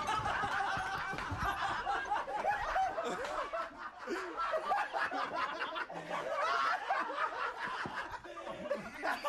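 Several men laughing hard together, overlapping snickers and cackles.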